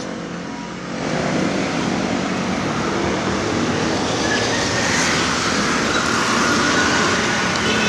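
Road traffic: cars and motorcycles going by on a busy street, a steady rush of passing vehicles that swells about a second in.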